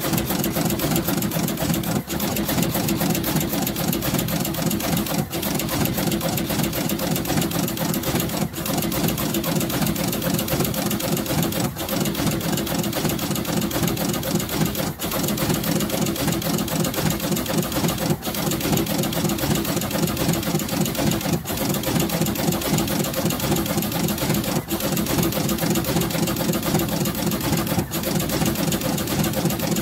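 Radial component insertion machine running, putting LEDs into a circuit board: a fast, steady mechanical clatter of rapid ticks, with a brief pause about every three seconds.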